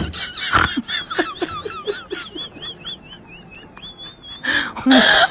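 Stifled, high-pitched giggling: a quick run of short squeaky laughs with a wavering high tone, followed by a louder cry near the end.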